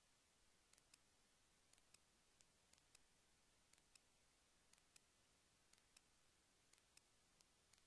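Near silence, with very faint, sharp clicks coming mostly in pairs about once a second, evenly spaced.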